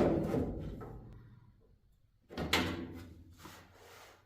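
Two knocks of something being handled, about two seconds apart, the first loud and each trailing off over a second or so.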